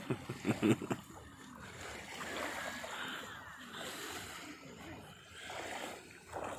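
Sea water sloshing and splashing around a person wading into shallow, cold sea, the splashing swelling and easing in waves. A few short voice sounds come in the first second.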